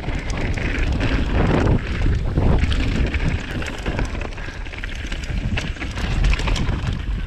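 Wind buffeting the microphone of a mountain bike riding downhill fast on a dirt trail, over tyre noise and many small rattling clicks from the bike.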